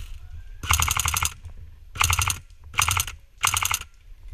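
Airsoft PPSh replica with a drum magazine firing four short full-auto bursts, each a quick rattle of shots, the first about half a second long and the rest a little shorter.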